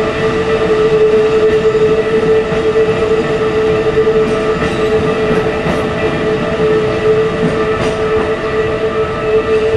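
Keikyu train running over a road level crossing, wheels clattering on the rails, while the crossing's warning bell rings on with a steady tone.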